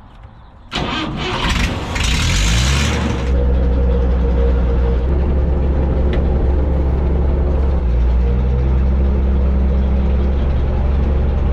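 An engine is cranked by its starter, catches within a couple of seconds with a brief loud rush, and then settles into steady running.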